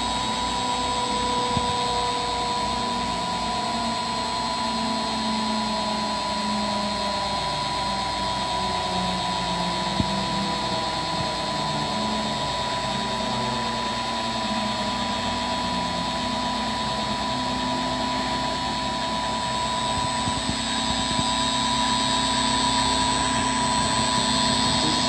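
CNC engraving machine's spindle motor running steadily with a high whine, its cutter engraving a wooden board, under a lower tone that shifts in pitch. A single click about ten seconds in, and it grows slightly louder near the end.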